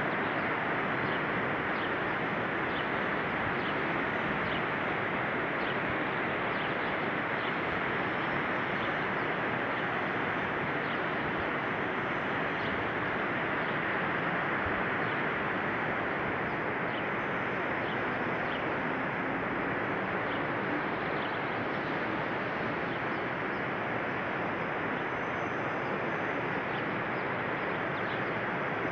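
Steady, even roar of the Rhine Falls' rushing water, with small birds chirping now and then over it.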